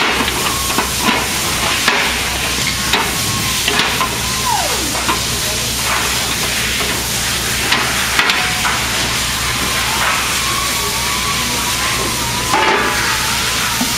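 Steady hiss and hum of workshop background noise, with scattered light clicks and knocks as aluminium deck panels and their pins are handled, and a short clatter about two-thirds of the way in. A faint wavering tone sounds in the last few seconds.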